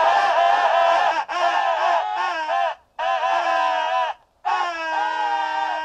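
Several trumpets and horns blown together in loud, sustained, discordant blasts: four long blasts with short breaks between them, the pitches bending at the start of each.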